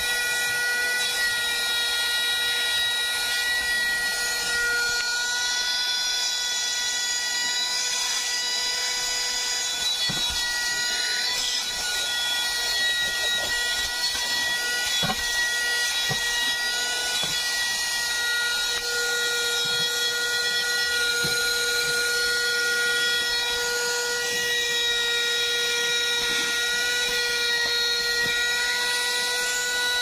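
Bergmann Tornado 12V handheld car vacuum cleaner running steadily, a constant motor whine over the hiss of rushing air, with occasional small ticks as it picks up dirt.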